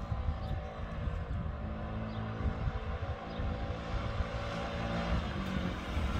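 Yamaha Vino 50cc scooter's small engine running steadily as the scooter rides along the street toward the listener.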